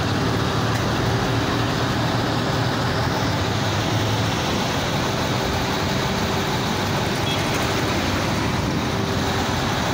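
Steady road traffic noise with vehicle engines running close by.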